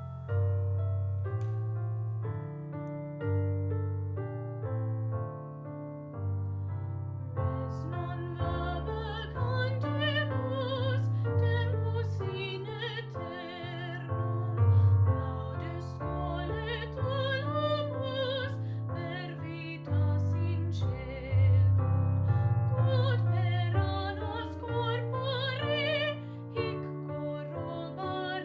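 A school song performed by a classically trained female singer with piano accompaniment: a piano introduction of steady chords, then the soprano voice enters about seven seconds in, singing with wide vibrato over the piano.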